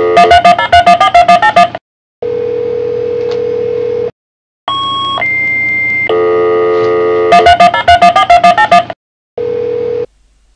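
Electronic intro jingle. A held chord leads into a quick run of repeated notes, then a steady tone lasts about two seconds, followed by a higher tone that steps up once. The pattern repeats, with short silent gaps between the parts.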